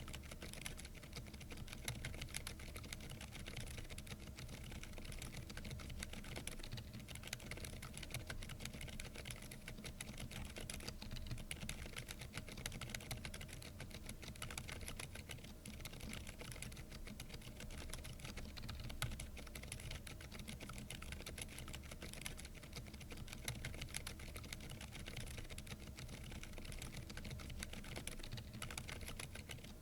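Continuous fast typing on a plastic-cased Keychron V10 Pro Max mechanical keyboard fitted with silent tactile banana switches: a dense, unbroken stream of keystrokes.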